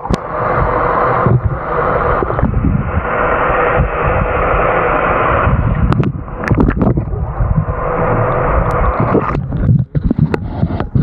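Muffled rushing and knocking of water against an action camera's waterproof housing held underwater, with a steady hum through the first five seconds or so and a few sharp knocks in the middle. The sound changes briefly about ten seconds in as the camera comes back out of the water.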